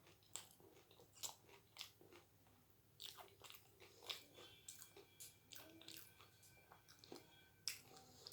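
A person chewing doi fuchka: faint, scattered crunches and crackles as the crisp fried shells, topped with yogurt, break up in the mouth.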